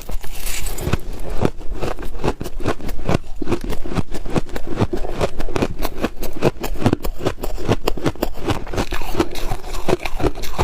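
Freezer frost crunching and crackling in a close-up run of sharp crisp crunches, several a second.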